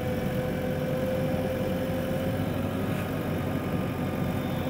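JCB 3DX backhoe loader's diesel engine running steadily while its hydraulics raise the backhoe arm, with a steady whine over the engine rumble.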